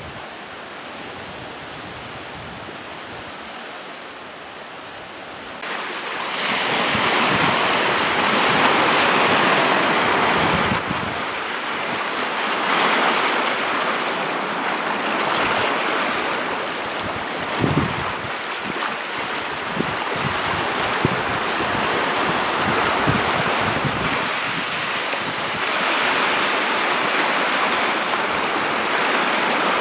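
Storm wind driving waves onto a lake shore, the waves breaking and washing in foam, with wind buffeting the microphone. The sound is quieter at first, jumps much louder about five seconds in, then swells and eases every few seconds.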